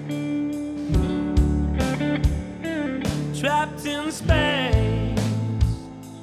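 Background music with a steady beat; a lead line bends and slides in pitch around the middle.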